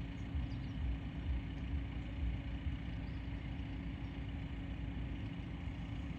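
A steady machine hum, like an engine idling, over an uneven low rumble.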